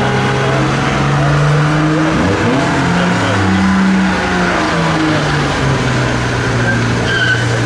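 Mk3 Ford Escort doing a burnout: the engine is held high at a steady note, dips and climbs again a few seconds in, and the spinning rear tyres start to squeal near the end.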